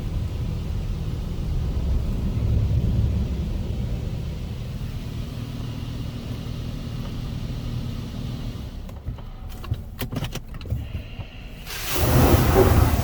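Low steady rumble heard from inside a car sitting in a touchless car-wash bay. A few sharp clicks and knocks come around nine to eleven seconds in, then a loud rush of high-pressure wash spray hitting the car starts about twelve seconds in.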